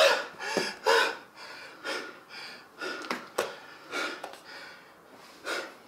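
A person's heavy, gasping breaths and sniffs, about two a second, growing fainter toward the end.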